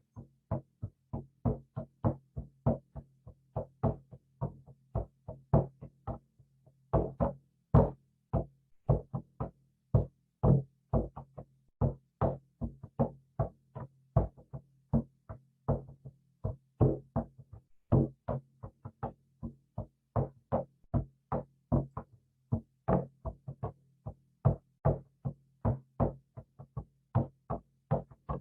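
Hand drum struck in a steady rhythm of about three beats a second, some beats louder than others, with a low ring from the drum carrying between strikes.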